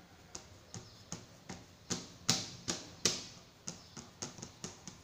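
Hands patting and pressing shortbread dough into a fluted metal tart tin, making a run of light taps about two to three a second, the loudest a little after two and three seconds in.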